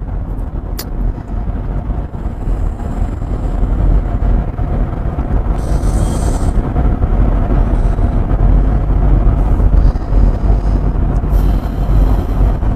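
Steady road and engine rumble of a moving car heard from inside the cabin, growing a little louder about four seconds in, with a single sharp click just under a second in.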